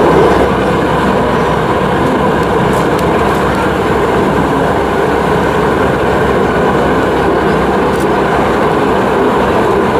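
AgustaWestland EH-101 Merlin helicopter hovering overhead, its rotor and turbines making a loud, steady rumble with no let-up.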